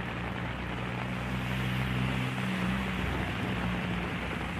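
Steady rushing noise of rain and a wet road, under a low, steady engine drone from a vehicle on the move.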